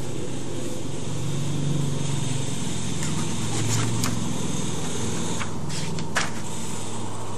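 A steady low mechanical hum throughout, with a few short crackles of a paper sheet being handled, around three to four seconds in and again near six seconds.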